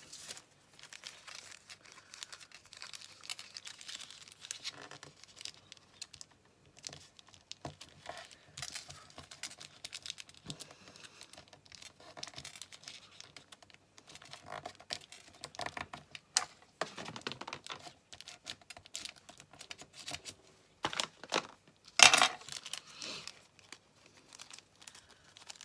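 Small sheet of thin paper being folded and creased by hand: scattered soft rustles and crinkles with light clicks, and a louder rustle about 22 seconds in.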